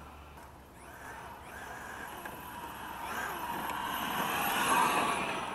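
Losi Mini WRC radio-controlled rally car running flat out on a dirt track, its brushless electric motor and 16-tooth pinion gearing whining with tyre and gravel noise. The sound grows louder as the car approaches, peaks about five seconds in, then starts to fade as it passes.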